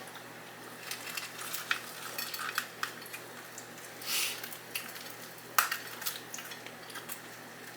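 Faint eating sounds: scattered small clicks and clinks of cutlery and dishes, with a short noisy sound about four seconds in and a sharper click soon after.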